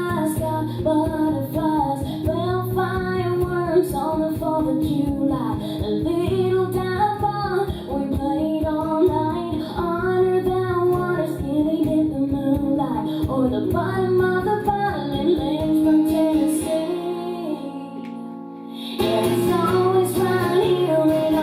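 A woman singing live with strummed guitar. About three-quarters of the way through, the strumming stops and a chord is left ringing, then the singing and full strumming come back in.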